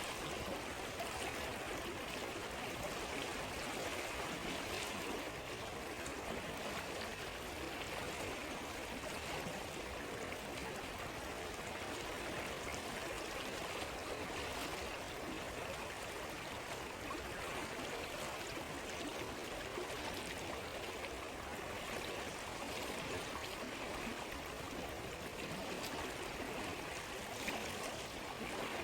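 A flowing stream rushes steadily, with a few faint crackles from a campfire.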